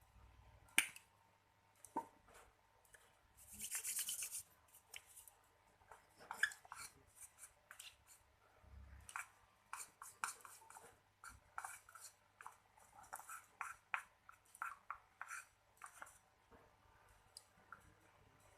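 Faint, irregular scraping and tapping of a utensil stirring a thick baby-powder-and-oil slime mixture in a container, with one longer hissy scrape about four seconds in.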